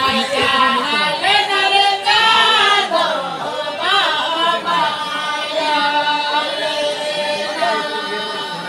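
A group of voices singing together in chorus, several pitches overlapping and gliding, loud throughout.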